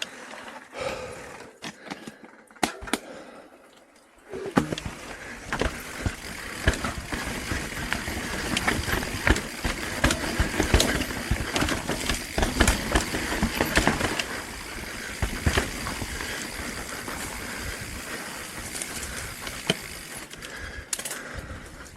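Mountain bike rolling over rough trail: tyre noise with a rapid, uneven clatter of knocks and rattles, starting about four seconds in after a few isolated clicks.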